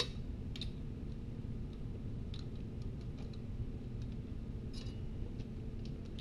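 Scattered light metallic clicks as roller rocker arms and poly lock nuts are handled and threaded onto the rocker studs of a small-block Ford V8 during a valve adjustment, over a low steady hum.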